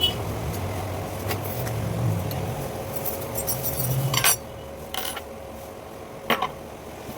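A low rumble that fades about four seconds in, with a few sharp clicks and knocks, the loudest just after four seconds and again past six seconds.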